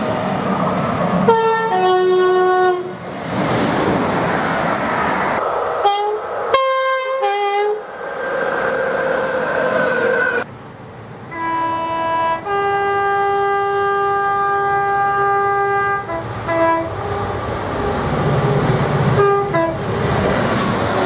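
Train horns blasting in a string of short cut-together clips: several short blasts, and one long blast of about four and a half seconds near the middle. Between the blasts comes the rumble and clatter of passing trains.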